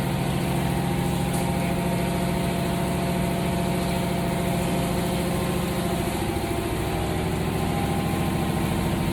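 Steady drone of running machinery, a motor-driven unit with a low hum and several steady tones; its tone shifts slightly about six seconds in.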